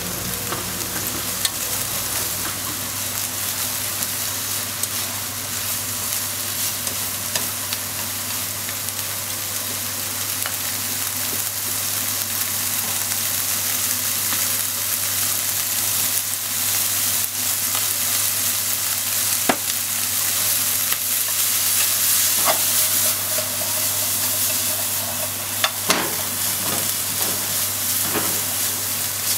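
Squid and sliced onion sizzling in a hot frying pan, a steady hiss. A few sharp clicks of wooden chopsticks against the pan come through, several of them near the end as the food is tossed.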